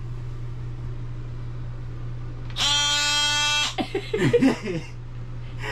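DeWalt cordless oscillating multi-tool squeezed for about a second midway through, a steady high-pitched buzz. A short voice-like sound follows, and a steady low hum runs underneath.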